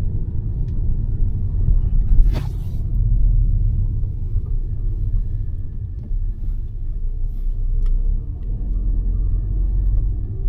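A steady low rumble, like vehicle or road noise, with one brief sharp noise about two seconds in.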